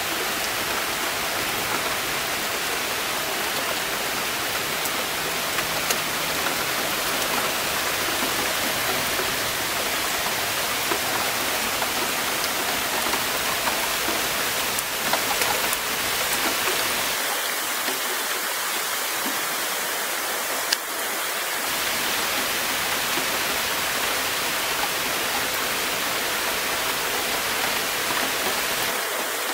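Steady rain shower falling on grass, garden foliage and a wet concrete patio with puddles, with scattered sharper drop ticks.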